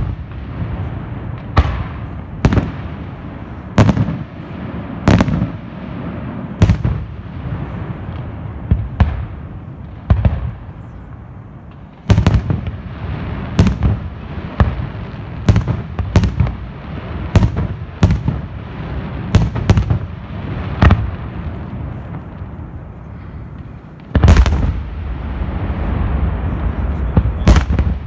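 Aerial firework shells bursting overhead, sharp bangs about once a second with rumble and crackle between them. About 24 seconds in, a dense volley of shells goes off together and the bangs merge into a continuous rolling barrage.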